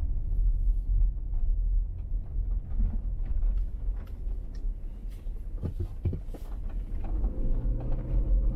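A car driving, with a steady low rumble of engine and tyres on the road and a few knocks. About seven seconds in, a steadier hum with a pitched note joins.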